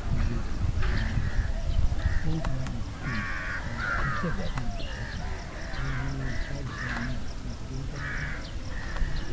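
Crows cawing again and again, short harsh calls about once or twice a second, with faint voices underneath.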